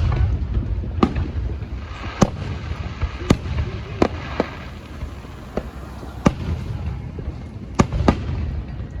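Aerial fireworks bursting: about eight sharp bangs at uneven intervals over a continuous low rumble.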